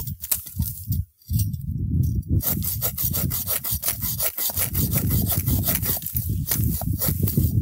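Hand saw, a Sawvivor folding bow saw, cutting through a wooden log in quick back-and-forth strokes, with a short pause about a second in. The cut is binding in the kerf.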